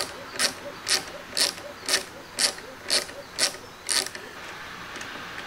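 A small hand driver turns the X-Carve's Z-axis lead screw to lower the router by hand. It gives nine sharp mechanical clicks about twice a second, which stop after about four seconds.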